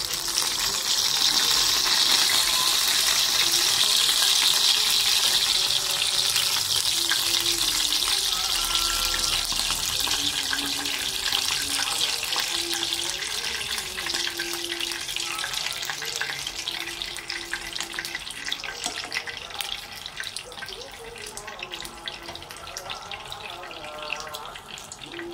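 Rice and its liquid simmering and sizzling in a pan on the stove: a steady hiss with fine crackles, loudest in the first few seconds and then slowly fading.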